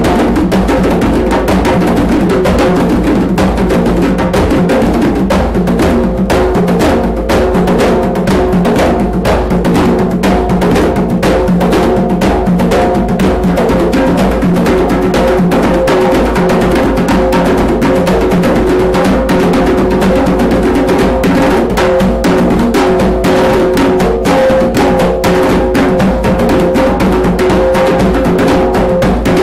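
Two djembes played together by hand, a dense, unbroken stream of slaps and bass tones.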